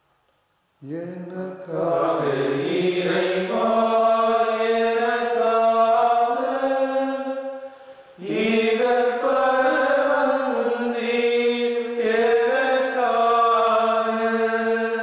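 A voice singing a slow devotional hymn in a chant-like style, with long held notes. It starts about a second in and runs as two long phrases, the second beginning just past the middle.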